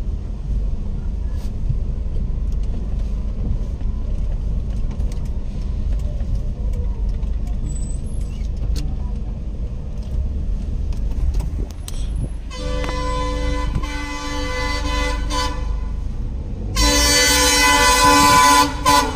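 Steady low rumble of a car being driven, heard from inside the cabin. About two-thirds of the way through, the car horn sounds in a long honk of about three seconds, then a louder honk of about two seconds near the end.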